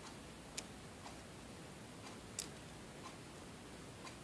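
Small metallic clicks and ticks from a tool working the pins out of a Master Lock M930 padlock's cylinder, with two sharper clicks about half a second and two and a half seconds in and a few fainter ones between.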